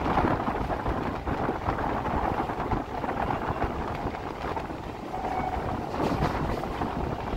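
Suburban electric train running: a steady rumble with wind buffeting the microphone.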